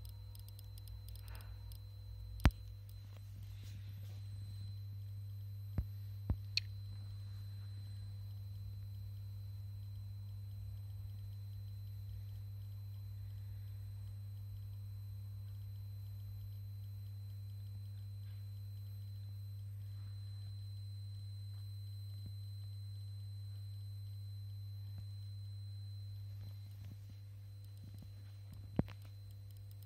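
Steady low electrical hum, like mains hum from bench electronics, with a few sharp clicks: one about two seconds in, three in quick succession around six seconds, and one near the end.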